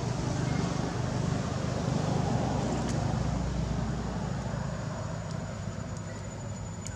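Steady low engine rumble of a motor vehicle, easing off over the last couple of seconds.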